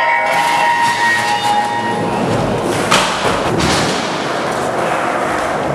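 Skateboard wheels rolling and boards knocking on wooden ramps in an echoing indoor skatepark hall, with two sharp board thuds about three seconds in.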